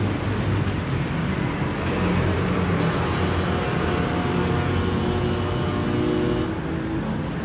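City street traffic: cars and scooters running past, a steady rumble with an engine hum standing out more clearly in the second half.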